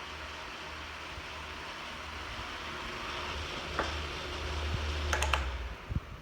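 1996 Super 12-inch oscillating table fan running with a steady whoosh of air and a low motor hum, then a single click about four seconds in and a quick triple click about a second later from its switch controls, after which the motor hum stops as the fan is switched off.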